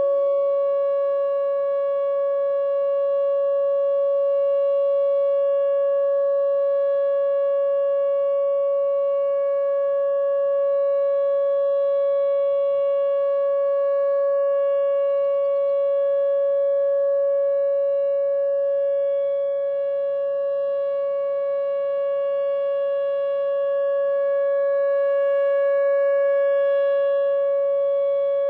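Emergency alert alarm: one loud steady electronic tone with overtones, held without a break or change in pitch.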